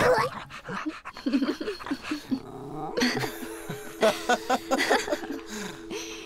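A pug's snuffling vocal sounds and a man and woman laughing in quick repeated bursts, loudest about four seconds in, over a soft sustained music score.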